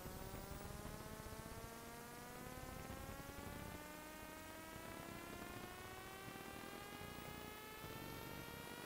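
A faint hum with several overtones, its pitch rising slowly and steadily, over a steady hiss.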